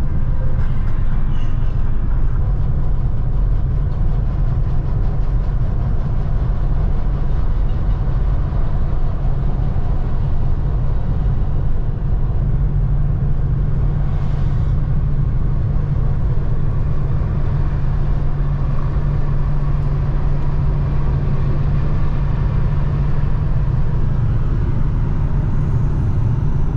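An RV driving on the road: steady low engine and road rumble with a constant low drone.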